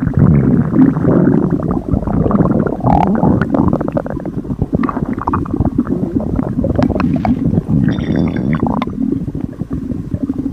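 Upset stomach growling and gurgling: a continuous low rumble full of small gurgles and pops.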